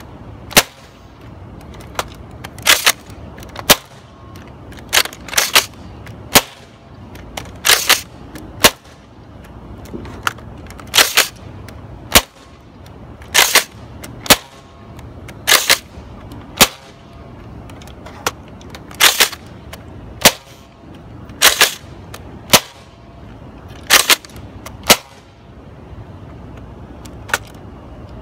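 Nerf Rival Sideswipe XXI-1200 spring blaster being primed and fired over and over: sharp plastic clacks and pops, often two or three close together, about one shot cycle every two to three seconds, roughly ten in all.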